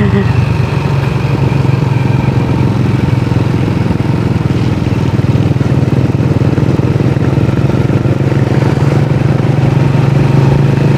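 Motorcycle engine running at a steady speed, heard on board while riding, under a steady rush of wind and road noise.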